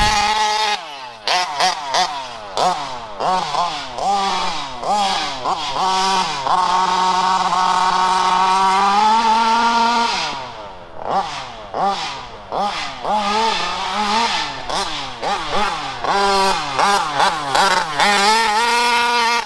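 Small petrol engines of fifth-scale RC cars revving in quick repeated blips, with one longer pull held at high revs for a few seconds around the middle before it drops away.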